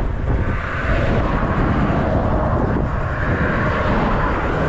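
Steady, loud rumble of vehicle traffic passing over the bridge overhead.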